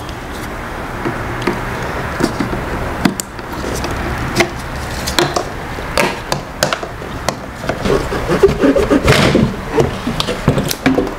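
Irregular clicks, knocks and clanks of hand tools and parts being handled during disassembly of an LS9 supercharger, with a busier clatter late on.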